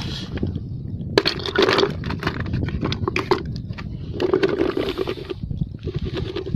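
Crunching and clinking of dead coral rubble and seashells on an exposed reef flat, in a quick, irregular run of sharp clicks.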